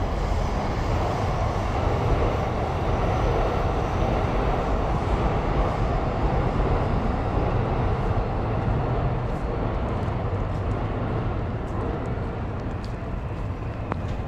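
A long, steady vehicle drone over city street noise, easing off a little near the end.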